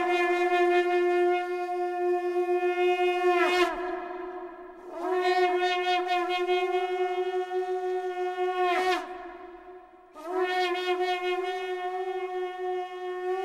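A blown horn sounding three long held notes on the same pitch, each sliding up as it begins and dropping away at its end, with short breaths between them.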